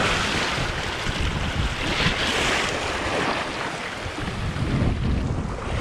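Sea surf washing against a rocky shore, surging a couple of times, with wind rumbling on the microphone.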